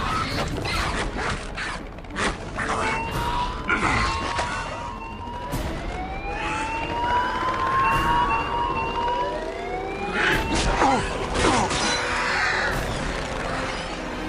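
Film action sound mix: many overlapping rising, siren-like wailing tones over a run of sharp impacts and a dense bed of effects and music.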